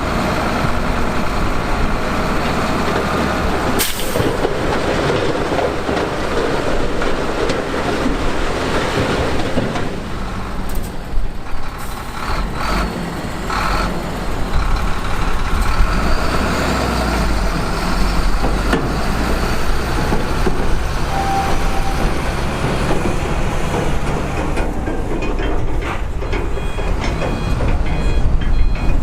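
Heavy diesel construction machinery running and working, with a sharp clank about four seconds in. A reversing alarm starts beeping near the end.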